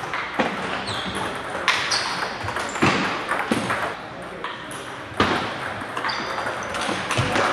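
Table tennis balls striking paddles and the table, irregular sharp clicks, several with a brief high ping, echoing in a large hall.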